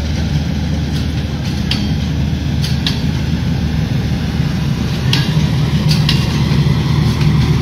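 Pakistan Railways passenger coaches rolling past at close range: a steady low rumble with a few scattered sharp clicks from the wheels and couplings. From about five seconds in a steady low drone grows louder as the power van, which carries the generator for the air-conditioned coaches, comes alongside.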